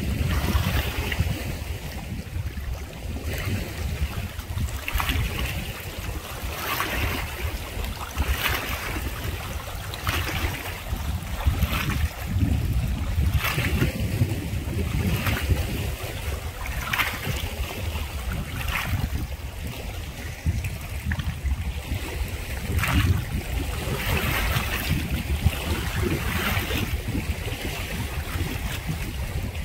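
Wind buffeting the microphone as a steady low rumble, with short sharp sounds every second or two above it.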